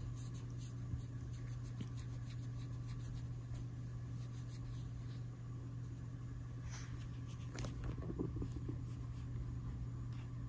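A cat licking a person's hand: quick, repeated rasping strokes of its rough tongue on skin, over a steady low hum. A brief louder rustle comes about two-thirds of the way through.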